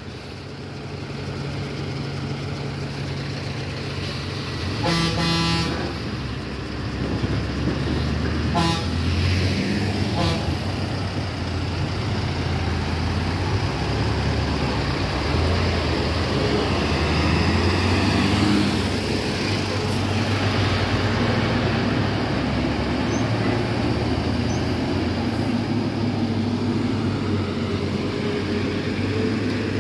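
Heavy trucks' engines running with a steady low rumble as they work round a hairpin bend. About five seconds in, a horn sounds for about a second, and two short horn toots follow a few seconds later.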